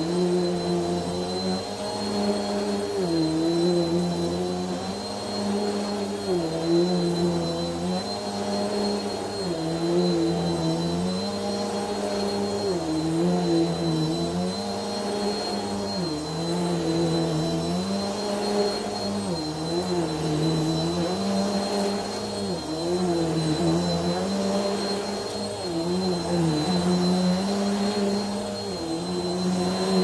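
Bissell PowerForce upright vacuum cleaner running while it is pushed back and forth over a carpeted rug. Its motor pitch dips and recovers with each stroke, about every two to three seconds, over a steady high whine.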